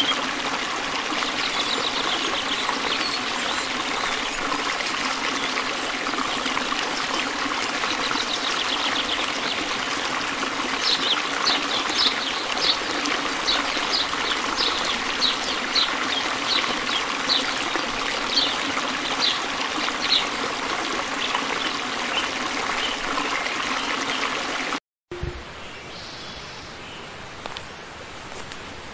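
Steady rushing outdoor background like running water, with a run of short, high chirps about twice a second through the middle. Near the end it cuts to a quieter background.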